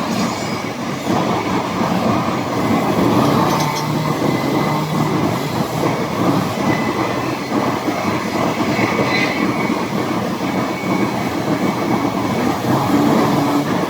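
Multiple band saw wood-cutting machine running with a loud, steady mechanical rumble, with a couple of faint high squeaks.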